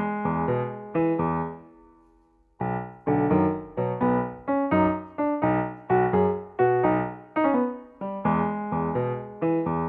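Background piano music: a light melody of separate plucked-sounding notes that each fade away, breaking off briefly about two seconds in before picking up again.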